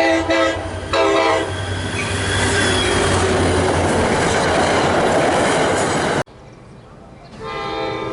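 Train horn sounding two blasts, then a train running past with loud wheel and rail noise. The sound cuts off abruptly about six seconds in, and a fainter horn sounds near the end.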